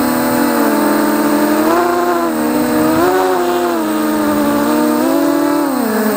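FPV quadcopter's brushless motors and propellers whining, several close pitches rising and falling together with the throttle and dropping near the end.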